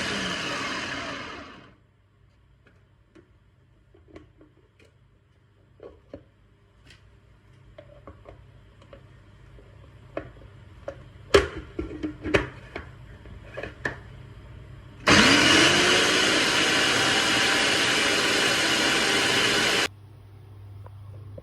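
Yasomi blender running on yogurt and forest fruits, then spinning down with a falling pitch. Next come scattered clicks and knocks of handling. Then a second run of about five seconds that spins up with a rising pitch and cuts off suddenly.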